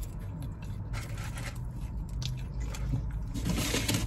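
Close-up eating sounds: a person biting and chewing a burger, with irregular crunching and scraping noises that grow louder near the end, over a low steady hum.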